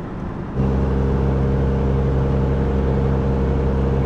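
Road and engine noise of a pickup truck heard from inside the cab while driving. About half a second in it changes abruptly to a louder, steady engine drone at a constant pitch, as at a constant cruising speed.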